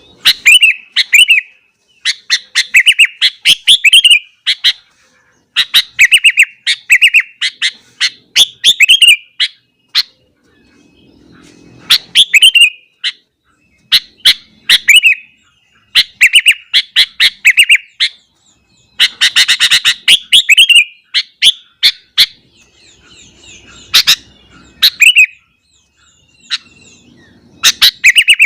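Sooty-headed bulbul singing loudly: quick phrases of chattering, bubbling notes, repeated again and again with short pauses between them.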